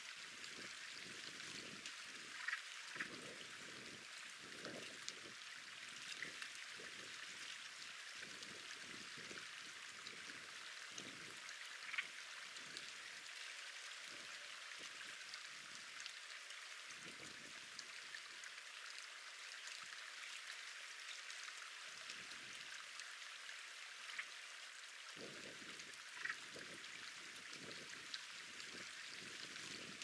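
Faint, steady hiss of running water, with a few brief, sharp sounds scattered through it.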